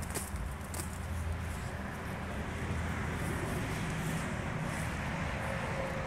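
Outdoor ambience: a steady low rumble and hiss of wind and distant road traffic, with a few faint knocks in the first second.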